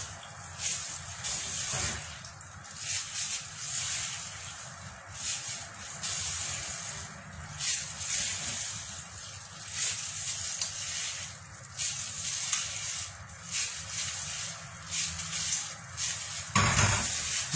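Raw chicken pieces being dropped by hand, one after another, into a metal tray of liquid marinade: wet slaps and small splashes at irregular intervals, about one a second.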